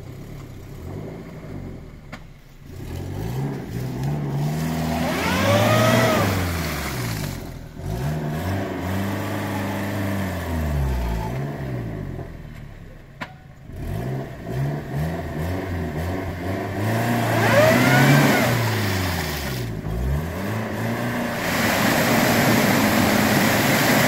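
A 4x4 jeep's engine revved hard in about four long surges, each rising and falling, as it tries to power through deep mud. A whine rises and falls with the revs at the two biggest surges.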